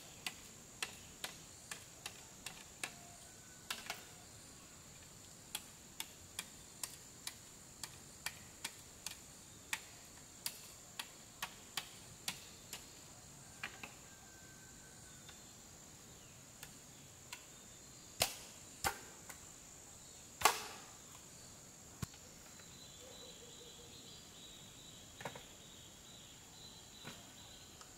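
Hand-tool strikes on wood: sharp knocks about two a second for the first half, then sparser, with two louder strikes later on. A steady high insect drone runs underneath.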